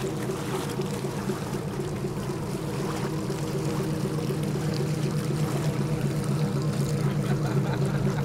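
A motor running steadily, with the sound of moving, pouring water.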